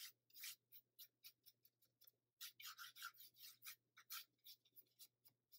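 Watercolor brush stroking and dabbing on paper, softening and blending a wet wash: faint, quick, irregular brushing swishes.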